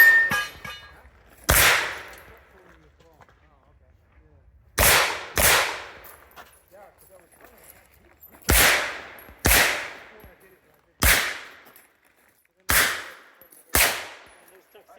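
Pistol fired in a timed practical-shooting stage: eight sharp shots in uneven groups, mostly pairs, with pauses of a second or more between groups, right after the shot timer's start beep.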